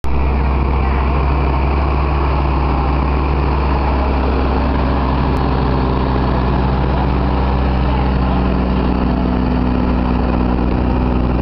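Case IH MX240 tractor's six-cylinder diesel engine running steadily at low speed as it tows a float past at close range.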